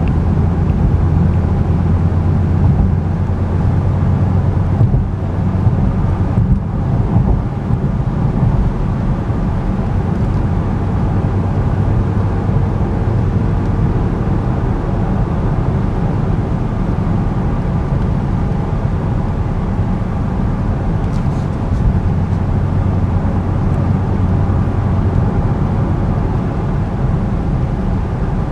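Steady driving sound of a 2011 Cadillac CTS-V Coupe heard inside the cabin: its supercharged 6.2-litre V8 hums low and even under tyre and road noise while the car cruises at a constant speed.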